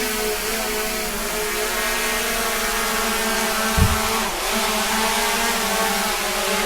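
A steady droning hum with many even overtones, with a single low thump a little under four seconds in.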